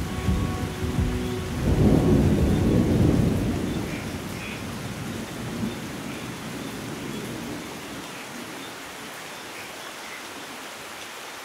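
Steady rain falling, with a long roll of thunder that breaks about two seconds in and rumbles away over the next several seconds, leaving the rain hiss alone.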